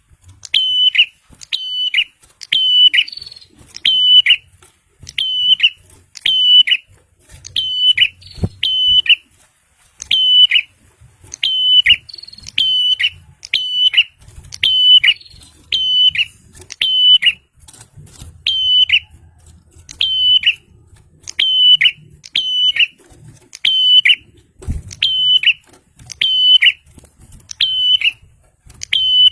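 A prinia (prenjak) calling over and over: loud, sharp whistled notes, each ending in a quick drop, given about one every second in twos and threes, in the continuous chatter of a bird in full song.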